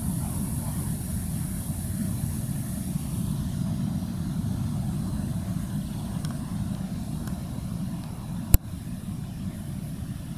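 Steady low rumble of a river cruise ship's engines as the ship moves slowly out of a lock chamber. A single sharp click comes about eight and a half seconds in.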